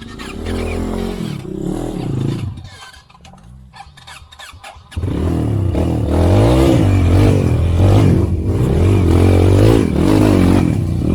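Trail motorcycle engine revving up and down under load, its pitch rising and falling repeatedly. It drops low for a couple of seconds, then runs loud from about five seconds in.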